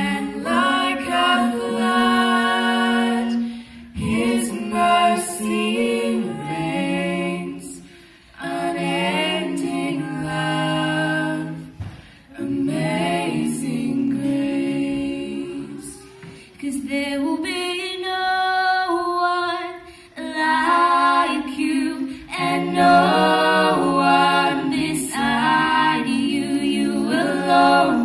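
Mixed a cappella vocal group, one male and three female voices, singing a slow hymn in close harmony. Long held chords come in phrases of a few seconds, with short breaks for breath between them.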